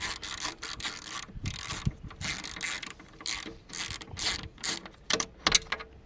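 Ratchet wrench clicking in quick, uneven strokes as it undoes the bolts of a Renault Scénic 3's panoramic roof glass. The clicking stops shortly before the end, after a couple of louder knocks.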